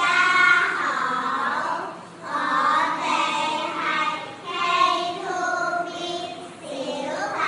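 A group of young children singing together in unison, in short phrases with brief pauses between them.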